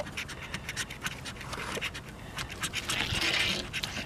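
A coin scratching the latex coating off a paper scratch-off lottery ticket: quick repeated scraping strokes, with one longer continuous scrape about three seconds in.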